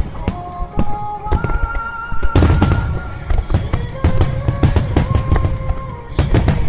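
Fireworks shells bursting in rapid succession, with sharp cracks and deep booms and the loudest barrage about two seconds in, over music with long held notes.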